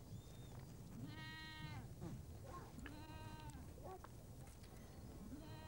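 Faint bleating from a mixed flock of goats and sheep: three separate drawn-out bleats, about a second in, about three seconds in and near the end.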